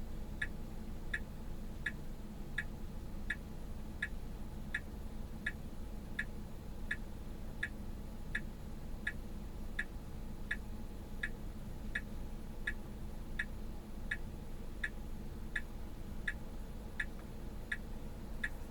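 Car turn-signal indicator ticking in a steady rhythm, about four ticks every three seconds, over a low steady cabin hum.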